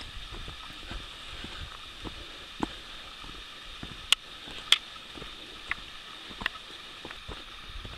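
Footsteps of a hiker walking a wet, leaf-covered forest trail, soft thumps about twice a second. Several sharp clicks and snaps come in the second half, over a steady high hiss.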